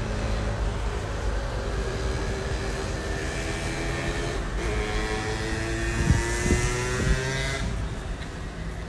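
A motor vehicle engine running and passing, its pitch rising slowly before fading near the end, over a steady low rumble of traffic and wind. Three sharp knocks sound about two-thirds of the way through.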